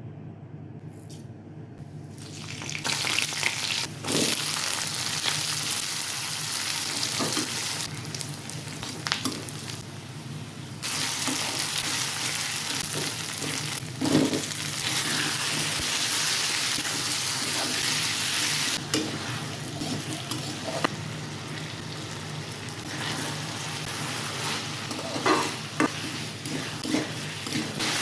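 Food sizzling steadily in hot oil in a pan while it is stirred, with occasional knocks and scrapes of the utensil against the pan. The sizzling comes in about two and a half seconds in and jumps in level a few times.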